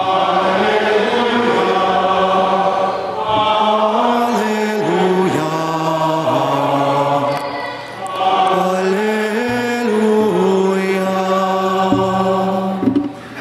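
Men's voices singing plainchant in unison: a slow melody of long held notes stepping up and down in two phrases, with a short break about eight seconds in. It is the sung acclamation before the Gospel at Mass.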